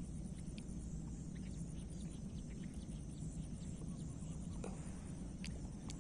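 Outdoor swamp ambience: a steady high insect drone over a low rumble, with a few faint short bird chirps scattered through.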